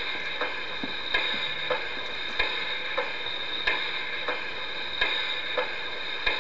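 Garden-railway model steam locomotive's added sound unit playing standing-still sounds through its speaker: a steady hiss with a regular beat about every 0.6 s, alternating between two different strokes.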